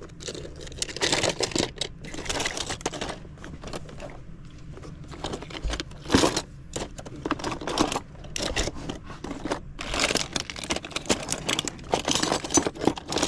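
Small toy cars clicking and clattering against each other as hands rummage through a box full of them, in short clusters with brief pauses and one sharper click about six seconds in.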